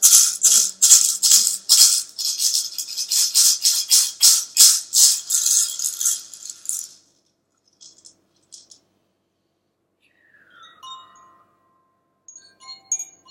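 Hand rattle or shaker shaken in an even rhythm, about three strokes a second, fading out about seven seconds in. After a couple of soft shakes, a tone slides down and holds, and wind chimes tinkle near the end.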